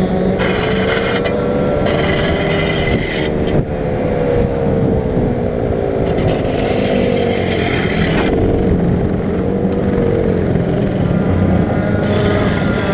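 Go-kart engine running with its pitch wandering up and down as the kart slows: the throttle linkage has broken, so the engine no longer answers the throttle.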